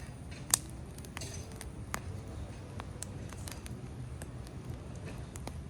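Steady low rumble with scattered short sharp clicks and ticks, the loudest about half a second in.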